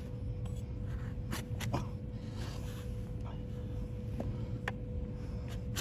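Hoof knife paring a donkey's diseased hoof: a few short scrapes and clicks over a low rumbling background, with a faint steady hum.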